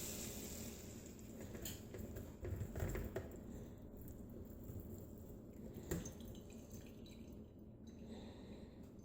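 Faint dripping with a few light taps: juices and butter grease draining from cooked meat strips in a strainer.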